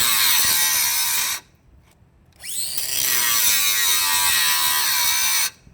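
Milwaukee electric angle grinder run twice: it is already running and cuts off abruptly about a second and a half in, then starts again with a rising whine, runs for about three seconds with a rough, wavering whine and stops abruptly. This is the noise of a grinder its owner calls a piece of crap, returned twice and told it is fine.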